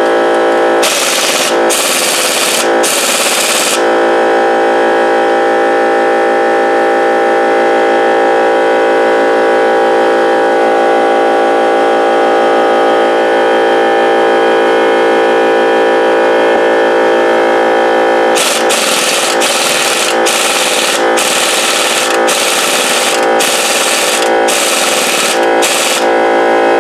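Pneumatic impact gun hammering in short bursts on seized, salt-corroded cylinder-head bolts of a Rotax 587 two-stroke engine: three bursts in the first few seconds, then about seven more in quick succession near the end. A steady droning hum runs underneath throughout.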